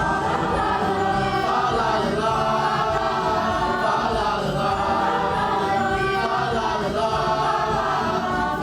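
Middle school chorus singing together in harmony, several voice parts moving at once at a steady level.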